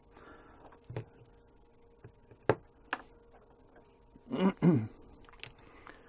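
A few sharp clicks and taps as multimeter test leads are picked up and handled, with a short wordless vocal sound about four and a half seconds in. A faint steady hum runs underneath.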